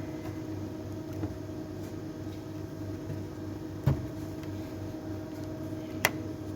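Two short metallic knocks from hand tools and parts being handled during engine disassembly, the louder one with a dull thump about four seconds in and a sharper click about six seconds in, over a steady background hum.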